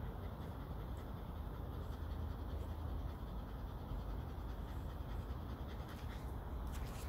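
A Shetland Sheepdog panting while a comb scratches through its thick long coat.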